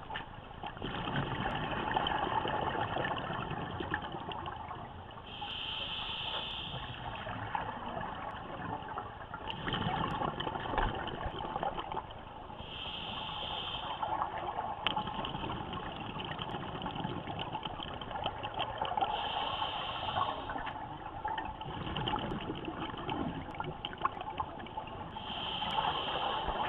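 A scuba diver breathing through a demand regulator underwater: a short hissing inhale about every six to seven seconds, four times, with the rush of exhaled bubbles between breaths.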